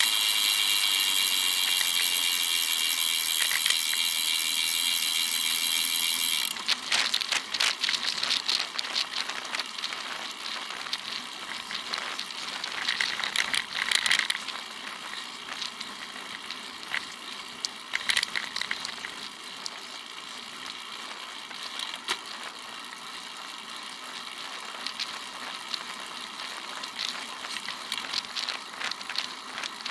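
Wind and road noise on a bicycle-mounted camera while riding, with the mount rattling and crackling. A steady hiss runs for about the first six seconds, then cuts off, leaving uneven crackling with a few louder knocks.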